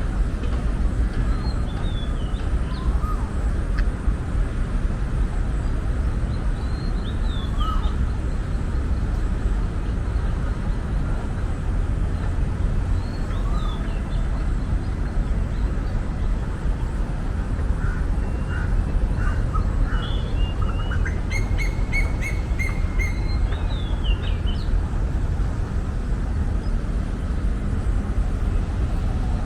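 Birds chirping and calling on and off over a steady low rumble, with a quick run of rapidly repeated calls about two-thirds of the way through.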